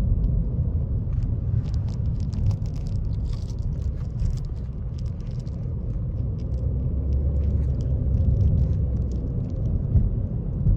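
Steady low rumble of road noise inside a moving car, with faint light rattles and ticks a couple of seconds in.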